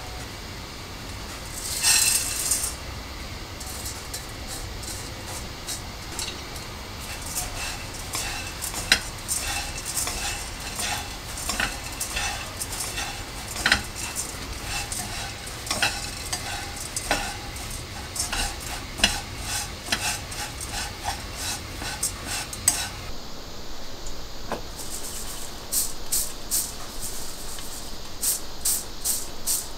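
Small dried anchovies poured into a hot, dry nonstick pan, then stirred so they rattle and scrape against the pan in irregular clicks as they dry-roast. Near the end, the roasted anchovies are shaken in a stainless-steel mesh sieve in quick, even rasping strokes, sifting out the crumbs.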